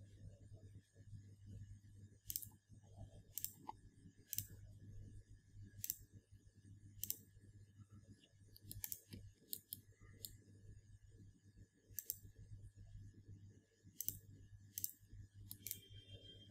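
Computer mouse button clicking, about fourteen sharp single clicks at irregular intervals, over a faint steady low hum.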